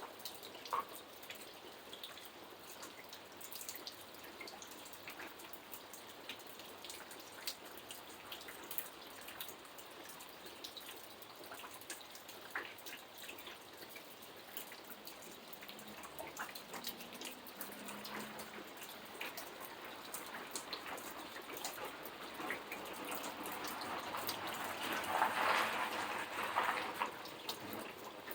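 Rain falling, a steady hiss with many separate drops ticking and dripping close by; it swells louder for a few seconds near the end.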